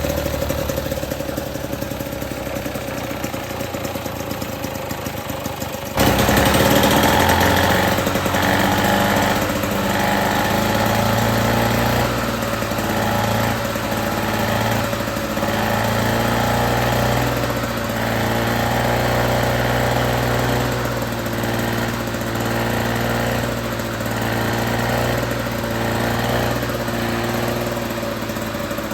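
1955 Lawn Boy 8F20 K mower's two-stroke engine running on its first start after restoration. About six seconds in it suddenly gets louder, then runs unevenly, its speed rising and falling in waves every couple of seconds.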